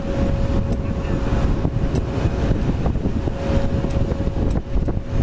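Wind rumbling on the microphone over the steady whine of an Airbus A330 on pushback behind a tug.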